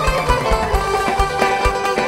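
Instrumental Greek band music with no singing: plucked strings over a bass line and a steady drum beat.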